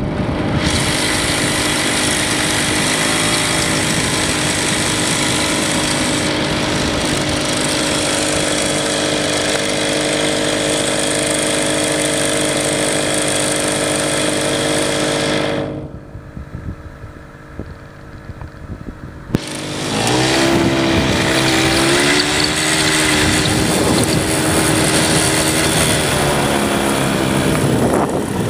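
ATV (quad bike) engine running steadily. It drops away for a few seconds a little past halfway, then comes back with its pitch rising and falling as it revs.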